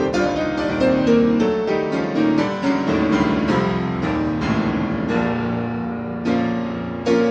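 Piano music from the added score: a slow run of struck notes and chords, each fading, with a fresh louder chord about six seconds in and another near the end.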